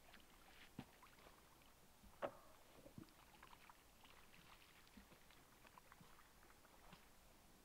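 Near silence, with faint scattered clicks and a few small knocks, the loudest about two seconds in.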